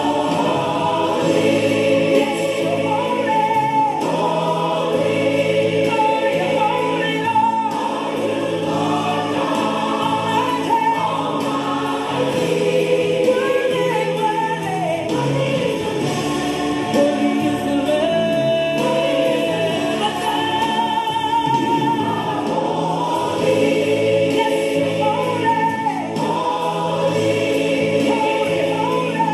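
Gospel worship music with a choir singing, the voices holding long, wavering notes over a steady accompaniment.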